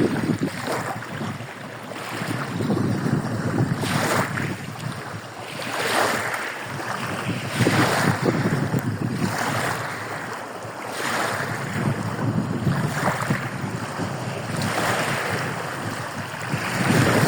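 Surf on a bay shore: small waves breaking and washing in, a new surge every one to two seconds, with wind rumbling on the microphone.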